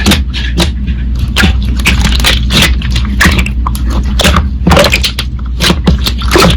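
Slime being squeezed and pressed by hand, giving irregular sharp pops and crackles, several a second, over a steady low hum.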